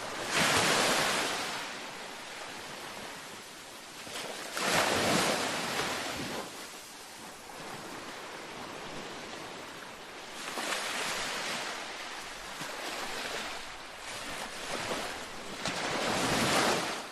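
Ocean waves washing onto a beach: the surf swells and fades in surges about every five to six seconds, with the loudest washes near the start and near the end.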